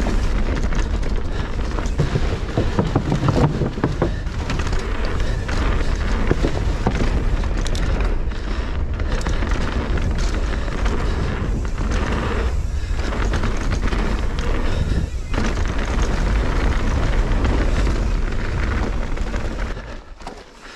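Mountain bike descending a dirt flow trail at speed: a continuous rush of wind buffeting the microphone and tyre noise, with a heavy low rumble. The sound drops off sharply near the end.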